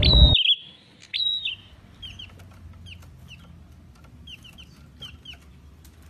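Caged perenjak (prinia) calling with short, sharp, high chirps. The first half-second is loud over background noise; after a brief gap the chirps go on fainter, about three a second.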